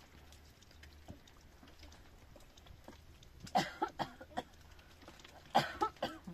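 A cat meowing twice, short calls a little past halfway and again near the end.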